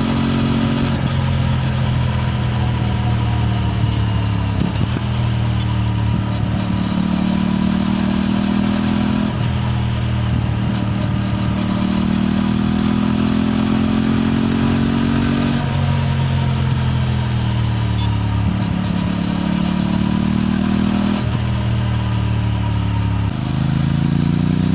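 Aprilia RS 457 parallel-twin engine and exhaust under way on the road. The note climbs slowly and then drops sharply four times, about a third, a half, four-fifths and nine-tenths of the way through, as it is shifted up through the gears.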